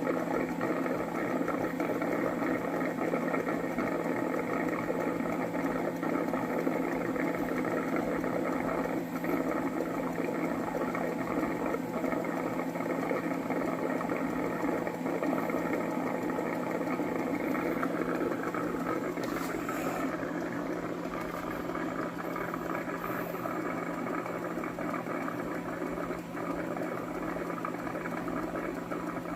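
Cuckoo Power Clone robot vacuum cleaner running: a steady motor-and-fan whir with a constant low hum, and one brief click about two-thirds of the way in.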